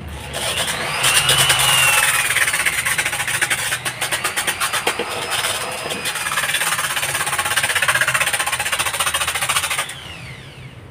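Electric drill spinning a zirconia flap disc mounted on a bolt, grinding against a painted wall: a loud, rasping scrape with rapid chatter over the motor's whine. The drill stops near the end and its pitch falls as it winds down.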